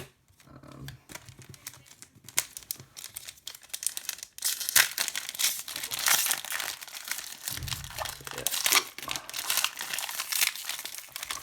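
Foil wrapper of a Yu-Gi-Oh! booster pack being handled and torn open by hand, crinkling. Light ticks at first, then loud, dense crinkling from about halfway in.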